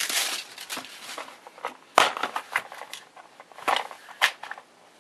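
Plastic tool case being unlatched and opened: a run of separate sharp clicks and snaps from its metal latch and clear plastic lid, the loudest about two seconds in and just after four seconds, with light plastic crackling at first.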